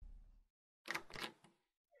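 Faint sound effects: a brief low rumble that dies away, then about a second in, three quick mechanical clicks.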